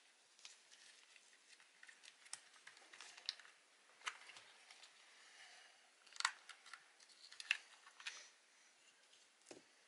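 Faint scattered clicks and taps of small plastic parts of an Agidel electric shaver being handled as it is taken apart, with two sharper clicks about six and seven and a half seconds in.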